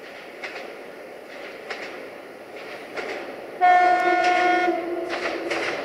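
Diesel railcar approaching: its wheels clack over rail joints, then about halfway through its horn sounds one steady blast of about two seconds.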